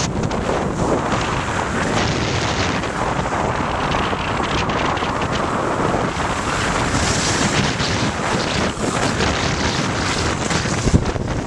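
Wind buffeting the microphone of a camera carried by a skier moving downhill: a steady, heavy rushing noise with strong low rumble, with a couple of sharp knocks near the end.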